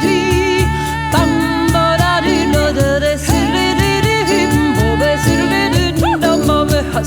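Music with a woman singing long, held notes that bend and waver, over a steady low accompaniment.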